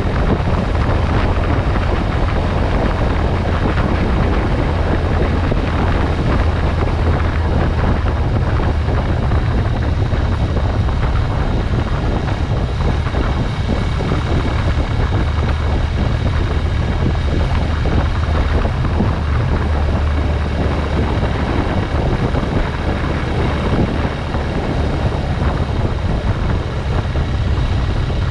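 Motorcycle on the move, its engine and wind rushing over the microphone merging into a steady low rumble. The level dips briefly about three-quarters of the way through.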